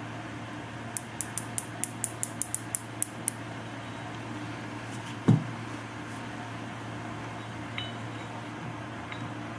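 A quick, uneven run of about a dozen small sharp metallic clicks, then a single dull knock about five seconds in, over a low steady hum.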